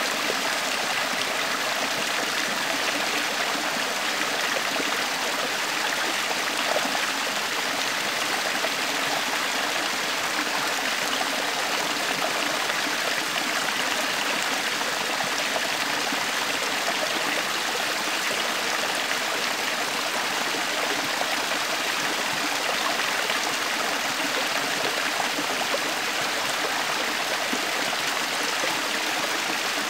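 Shallow stream spilling over a small rocky step: a steady, even rush of running water.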